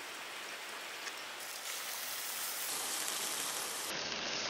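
Steady hiss of butter sizzling on live charcoal embers in small steel cups, smoking the fish masala. It grows a little louder about two seconds in.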